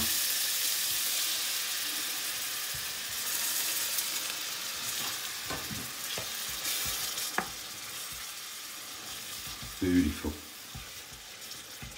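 Diced onions and ginger-garlic paste sizzling in a hot aluminium frying pan, with a few light knocks of a wooden spoon stirring against the pan. The sizzle quietens gradually as a little base gravy is added to keep the paste from catching.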